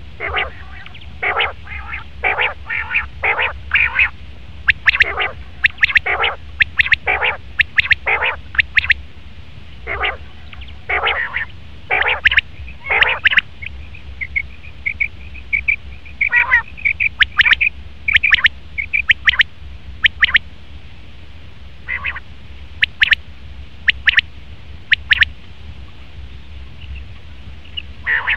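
Male common quail calling: short, sharp notes repeated in quick series, broken by pauses of a second or two.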